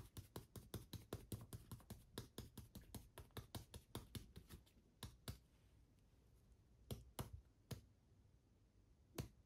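Faint crinkling clicks of a clear plastic bag being shaken to pour alginate impression powder into a glass jar: quick, about six clicks a second for the first four seconds or so, then only a few scattered clicks.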